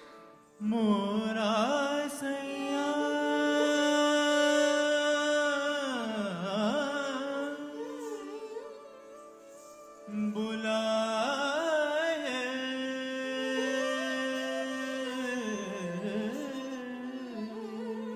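Indian classical music: a single melodic line of long held notes with sliding ornaments, in two phrases, the second starting about ten seconds in.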